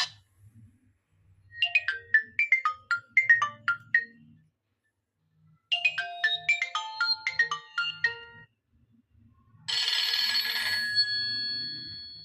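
Old Nokia mobile phone ringtones: three short electronic melodies one after another, the first two made of quick, separate beeping notes, the last a fuller chord that rings on and fades away.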